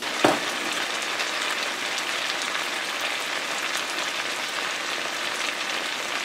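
Cubed red potatoes frying in butter in a cast iron skillet: a steady sizzle with fine crackling, browning the potatoes. A single short knock sounds as the sizzle begins.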